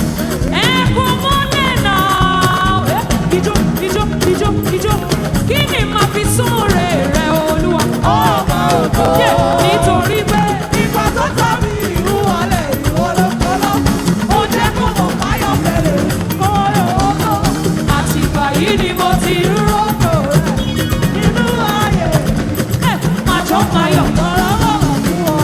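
Live gospel band music with a steady beat and a melodic lead line, with singing.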